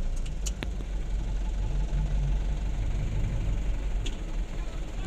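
Vehicle engine running at idle, heard from inside the vehicle as a steady low rumble, with a few light clicks.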